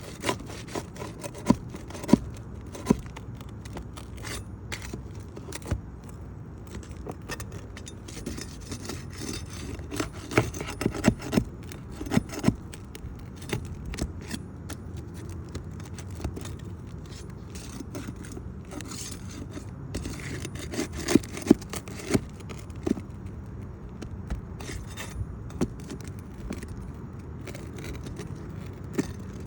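Flat bar scraping and prying under asphalt shingles to break their sealant strips, with sharp knocks and taps in several bunches.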